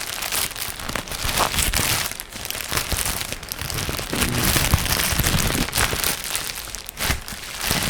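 A shipping pack being crumpled by hand close to a condenser microphone, with a dense, continuous crackling.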